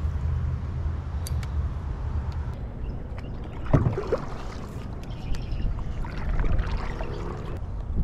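Kayak paddle strokes: the blades dip and splash in the water. Before the strokes come a steady low rumble and a sharp knock.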